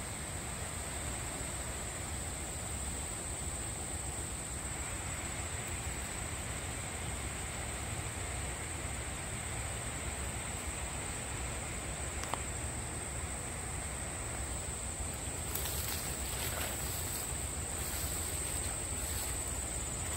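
Insects in the woodland droning steadily on one unbroken high-pitched tone, over a faint outdoor hiss, with a few brief rustles near the end.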